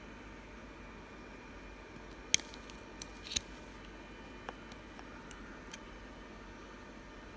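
Mesh net being pulled off a squishy stress ball: a few scattered sharp clicks and snaps, the loudest a little over two seconds in.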